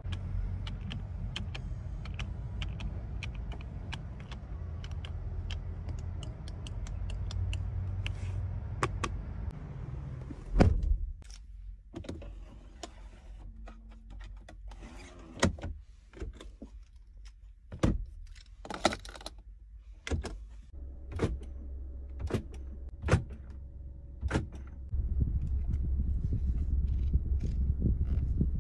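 Electric power-seat motor of a Buick GL8 Avenir minivan whirring steadily for about ten seconds, with light clicking over it, then stopping with a loud clunk. Scattered clicks and knocks of plastic interior trim follow as a console cup-holder drawer is worked, and a low hum starts up again near the end.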